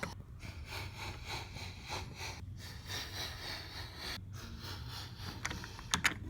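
Toy train engine pushed along its track: a steady rolling, rubbing noise, with a couple of sharp clicks near the end.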